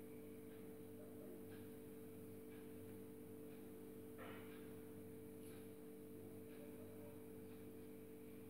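Near silence over a steady low hum, with a few faint, light scrapes of a bamboo tool incising a design into the soft clay of a diya, the clearest about four seconds in.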